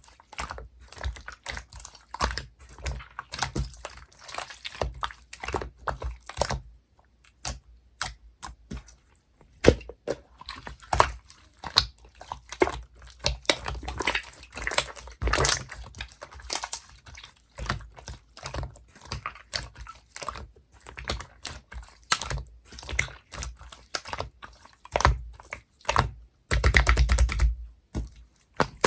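Clear, chewy slime being worked: irregular sticky clicks and small pops, with a fast, denser run of clicks near the end.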